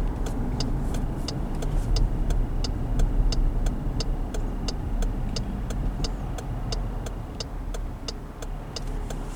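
Turn-signal indicator of a 2016 Dodge Durango clicking steadily, about three clicks a second, over the low rumble of the SUV driving.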